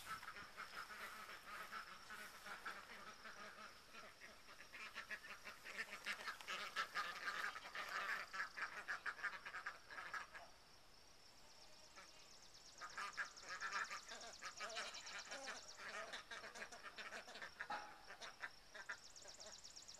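A flock of Swedish Blue and Chocolate Indian Runner ducks quacking and chattering in faint, rapid bursts, with a lull about halfway through before they start again. A steady faint high whine runs underneath.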